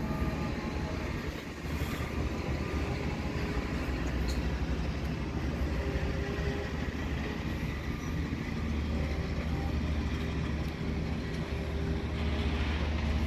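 Steady electrical hum of an SŽ 510 Stadler FLIRT electric multiple unit with its onboard equipment running, with a deep low drone and a few held tones above it.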